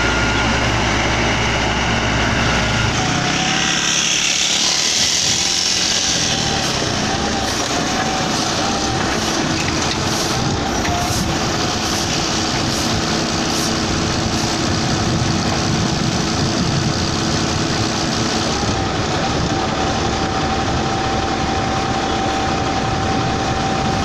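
Komatsu GD555 motor grader's diesel engine running steadily while the machine works. A deep engine hum drops away about three seconds in, leaving a steady running sound with a faint whine.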